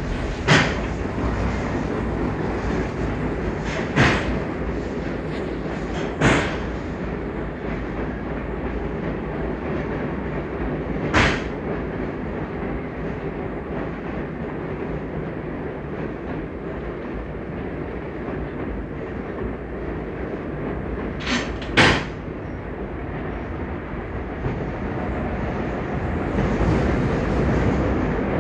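Steam railway train running with a steady rumble, broken by about six sharp clicks at irregular intervals, two of them close together late on, and growing a little louder near the end.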